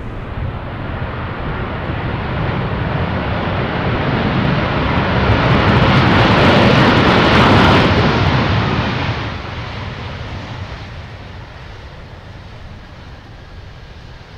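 Airbus A330 jet airliner rolling out on the runway just after touchdown, its engines running with a steady roar. The roar swells to a peak about halfway through as it passes, then fades away.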